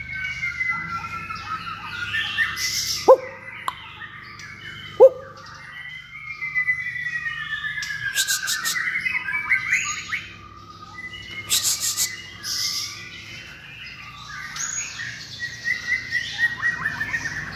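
Caged young songbird singing a loud, varied song of clear whistled notes, sliding whistles and fast chattering runs, broken twice by short harsh rasps.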